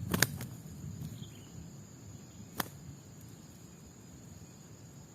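A steady, high-pitched insect drone, typical of crickets. It is broken by two sharp clicks, one just after the start and one about two and a half seconds in.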